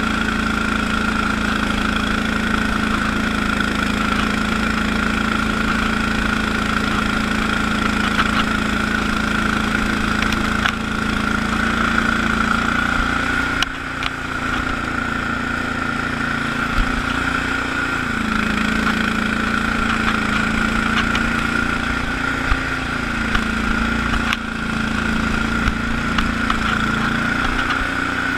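Allis-Chalmers HB-112 garden tractor's engine running steadily while driving a 48-inch Sweepster rotary broom through snow, with a steady high whine over the engine note. The sound dips briefly about halfway through, and the engine note wavers a little after that.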